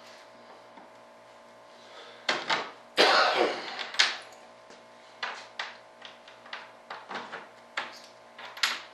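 Hands and tools working at the bolts along a fiberglass wing mold's flange: a few sharp knocks and a short burst of scraping about three seconds in, then a run of irregular light clicks.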